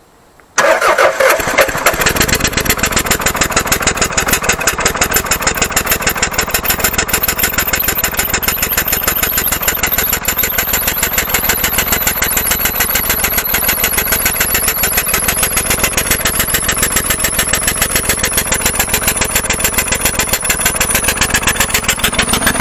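Toyota 4S-FE 1.8-litre four-cylinder petrol engine started, kicking in suddenly about half a second in and then running loud and rough with a fast, uneven beat. The owners suspect a worn-out engine with low compression.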